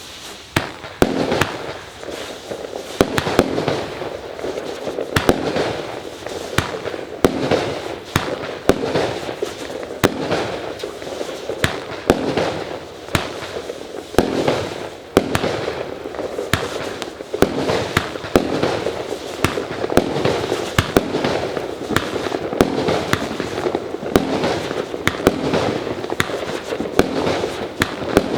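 Wolff 'Turning Boom' 25-shot firework battery firing shot after shot, about one a second: sharp bangs over a continuous rushing hiss, starting about a second in.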